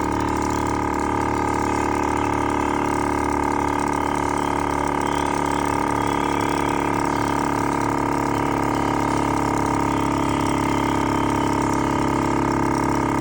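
12 V air-suspension compressor running steadily under load, a constant motor whine and hum as it pumps pressure up past 100 PSI.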